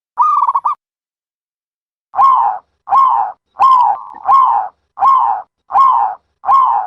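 A dove cooing: a quick rolling trill of coos, then after a pause a run of seven evenly spaced coos, each rising and falling in pitch, about one and a half a second.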